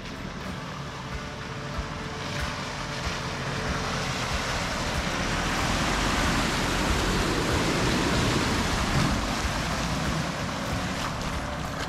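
Four-wheel-drive ute driving through a shallow muddy creek crossing: engine running under the splash and slosh of water and mud churned by the tyres. It grows louder as the vehicle comes alongside, about halfway through, and eases off a little as it pulls away.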